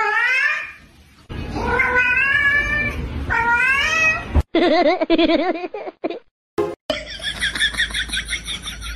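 Domestic cat meowing for a treat: three drawn-out meows that rise in pitch, then a lower, wavering call. Near the end a different sound takes over, a rapid high pulsing.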